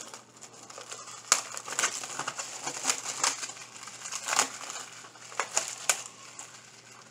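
A 4K Blu-ray case and its packaging being handled: irregular crinkling rustles and sharp clicks, the sharpest about a second in.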